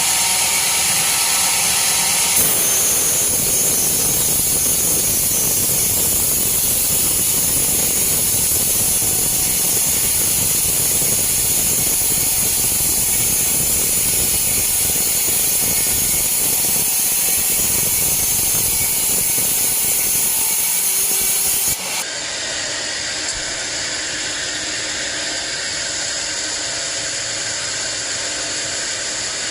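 Band sawmill cutting a teak log: a loud, steady hiss and rumble of the blade running through the wood. About three quarters of the way through it drops abruptly to a quieter, steady machine running sound.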